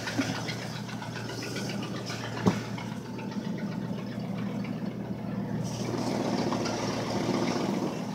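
Ford 5.4-litre 3-valve Triton V8 idling steadily while still cold from a cold start, heard from inside the truck's cab. A single sharp knock sounds about two and a half seconds in.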